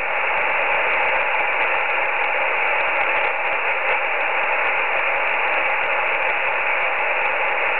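Steady shortwave receiver hiss through a narrow single-sideband (USB) passband, with no voice. It is the empty channel between transmissions on a Russian radiotelephone link, with the signal dropped out.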